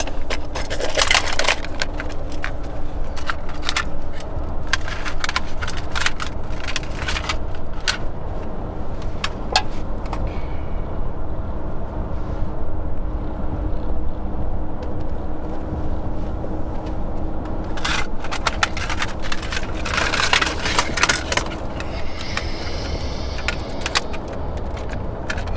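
Steady road and engine rumble inside a moving car's cabin, with bursts of clicking and clattering from plastic cassette tapes being handled, over the first several seconds and again around twenty seconds in.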